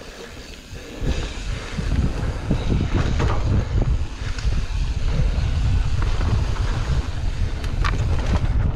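Wind buffeting the microphone and the rumble of mountain-bike tyres on a dirt trail, with frequent small knocks and rattles from the bike. It starts quiet, then grows loud about a second in and stays that way.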